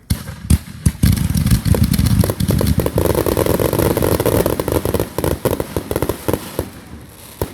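Fireworks going off. A few separate bangs come first, then a dense run of rapid pops and crackles lasting several seconds, thinning out near the end.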